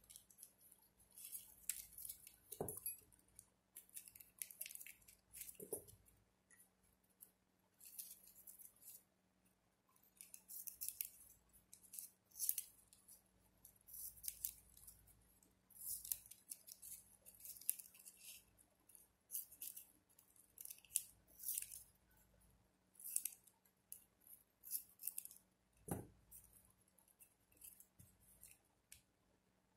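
Small scissors snipping off excess ribbon: faint, short, crisp snips at irregular intervals. A few soft knocks about 3, 6 and 26 seconds in.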